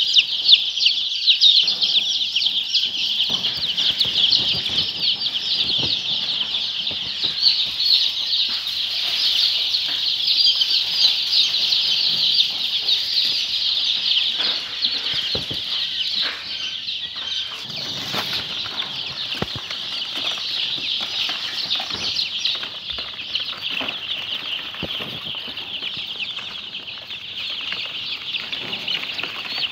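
A dense, continuous high chorus of many birds chirping at once, with scattered faint knocks and rustles beneath it.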